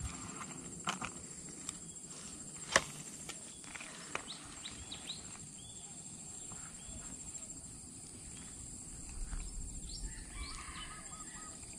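Outdoor ambience: birds chirping and calling over a steady high-pitched buzz, with a run of quick repeated chirps near the end. A few sharp clicks break through, the loudest about three seconds in.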